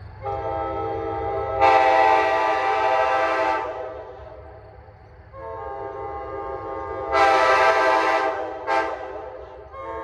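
Nathan K5LA five-chime locomotive air horn, from Amtrak F40 No. 370, sounding its chord on a manual valve. It plays through the whole stretch, swelling to full blast twice for about two seconds and once in a short stab near the end, and easing off in between.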